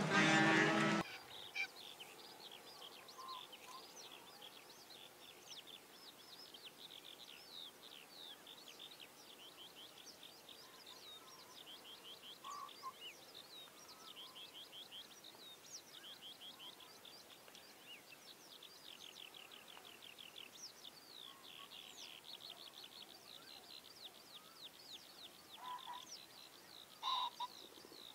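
Many small birds chirping in quick, high, falling notes over a faint open-air hiss, with a few brief lower calls near the end. A loud pitched sound cuts off abruptly about a second in.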